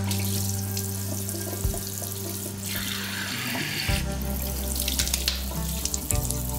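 Water running from a tap into a small washbasin while hands scoop and splash it onto a face, the water rushing louder in stretches. Background music of sustained low notes plays underneath.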